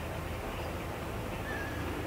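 Steady low rumble of outdoor background noise, with a brief faint high chirp about one and a half seconds in.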